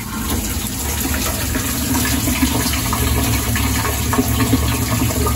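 A sump pump pushes a slurry of water and abrasive blasting media out of a vapor blasting gun's nozzle. It gushes steadily and splashes onto the cabinet's wire grate, over a steady low hum.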